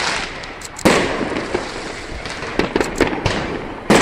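Aerial fireworks bursting: a loud boom about a second in and another near the end, with smaller pops and crackling in between.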